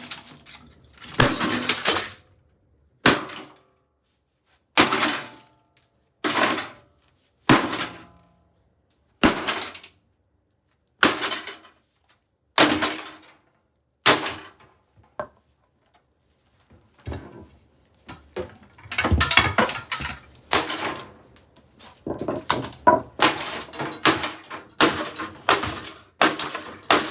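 Sledgehammer blows smashing a Hamilton Beach microwave oven, each blow a crash of metal and breaking glass. About ten single blows come a second or two apart, then a faster run of crashes and clattering over the last ten seconds.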